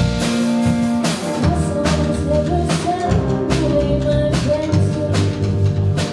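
Live rock band playing loudly: drum kit beating a steady rhythm under bass and sustained guitar or vocal lines.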